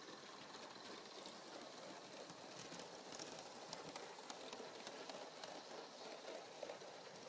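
Gauge 1 live-steam model locomotive running with its train of coaches: a faint steady hiss with light, irregular clicking from the wheels on the track.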